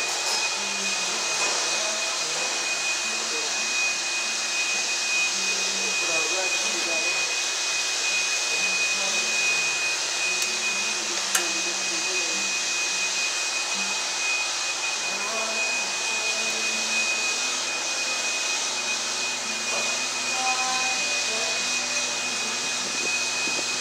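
A steady machine whir with a constant high-pitched whine, and a single sharp click about eleven seconds in.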